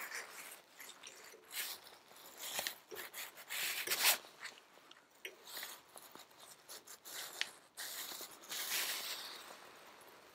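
Steel coil spring being worked over the key on a Ferguson TED20 brake cross shaft with a screwdriver: faint, irregular metal scraping and small clicks, with a sharper click about four seconds in.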